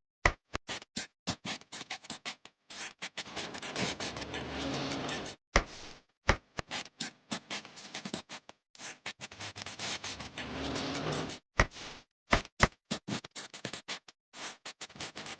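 Sharp clicks and knocks of small hard objects in quick, irregular succession, with stretches of scraping between them, broken by abrupt cuts to silence.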